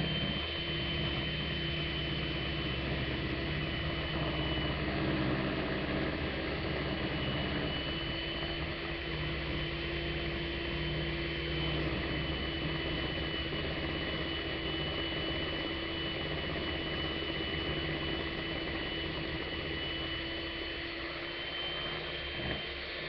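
Handheld electric mixer running with a single beater fitted, churning shea butter, cocoa butter and coconut oil in a plastic bowl; a steady motor whine with a lower hum underneath.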